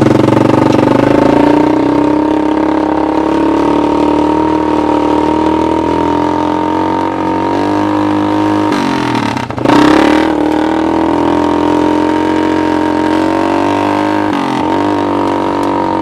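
1986 Honda TRX200SX single-cylinder four-stroke engine powering a converted golf cart, running steadily while driving. About nine seconds in the engine note drops sharply and climbs back, and it dips briefly again near the end.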